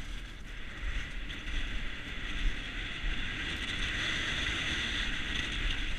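Skis hissing and scraping steadily over groomed snow on a downhill run, with wind rumbling on a head-mounted action camera's microphone.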